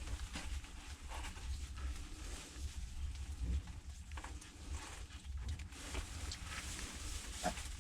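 Faint rustling and scattered small clicks from newborn potbelly piglets moving about their pen, over a low steady rumble.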